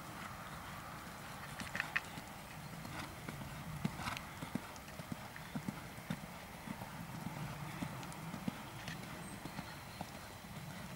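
Hoofbeats of a Holsteiner mare cantering on sand arena footing: a run of dull, uneven thumps with a few sharper clicks.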